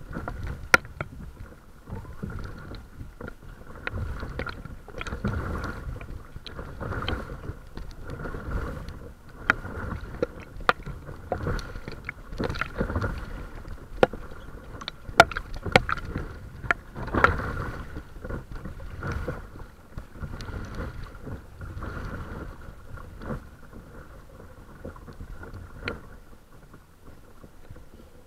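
Water lapping and splashing against the nose of a small paddled craft as it moves, in uneven surges every second or two, with many sharp little clicks and splashes.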